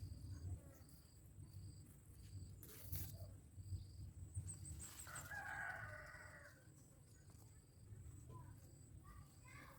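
A rooster crows once, faintly, about halfway through, over short high chirps that repeat at a steady pace.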